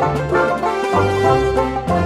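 Upbeat background music with plucked strings and a bass line that changes note about every half second.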